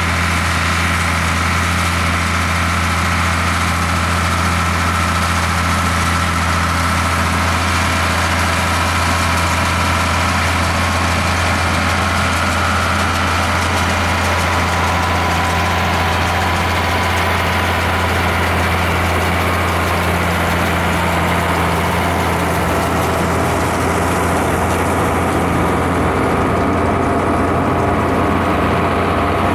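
International Harvester 1066 tractor's diesel engine running steadily at constant speed, with a deep hum and no change in pitch.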